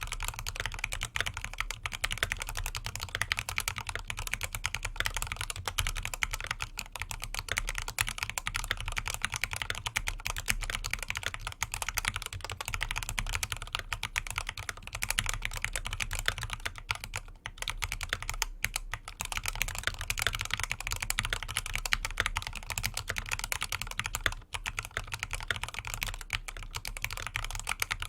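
Fast continuous typing on a tenkeyless mechanical keyboard with factory-lubed C3 Equalz Banana Split switches and dye-sub PBT keycaps, a dense stream of high-pitched key clacks with a few short pauses, about two thirds of the way through and again near the end.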